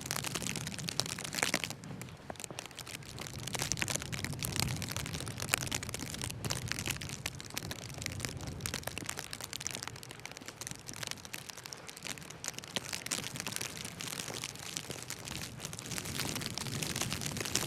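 Footsteps crunching through snow, a dense run of crisp crackles, over a low steady rumble.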